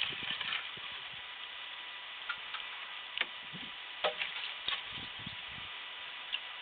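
Split firewood being handled and stacked: light wooden knocks and clicks of log against log, scattered irregularly a second or so apart.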